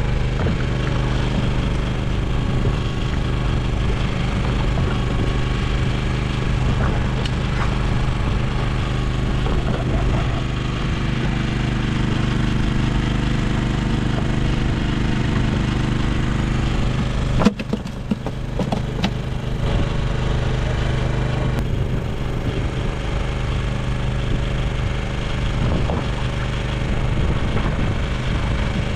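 Steady drone of a small engine running on a fishing boat, an even hum. A brief sharp knock and dip about two-thirds of the way through.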